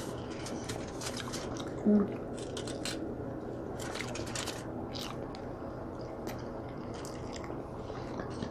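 Close-up eating sounds of seafood boil: wet chewing, lip smacking and small clicks, with a brief hum about two seconds in.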